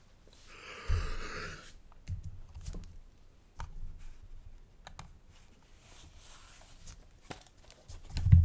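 A person moving close to the microphone and handling his face and head. There is a short hiss with a low thump about a second in, then scattered small clicks and low thumps, the loudest thump near the end.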